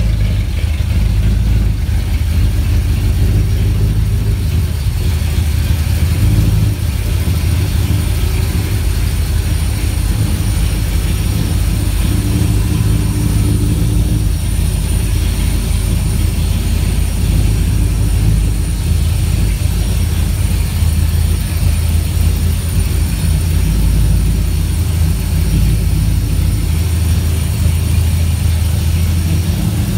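454 big-block Chevy V8 idling steadily through SpinTech Pro Street 6331 mufflers, a deep, even exhaust rumble.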